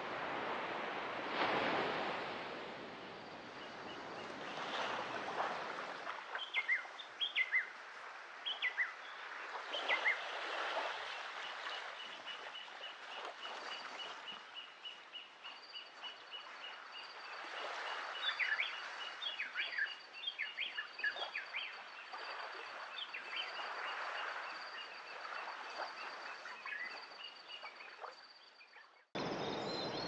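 Surf washing for the first few seconds, then a sudden change to a quieter shore ambience: birds chirping in short falling calls over a steady high trill, with soft washes of waves. Near the end it switches abruptly back to full surf.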